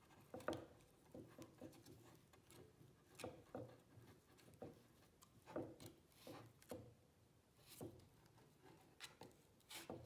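Faint, scattered short scrapes and rustles, about a dozen at irregular intervals, as a Swiss Army knife's awl and twine are worked through corrugated cardboard.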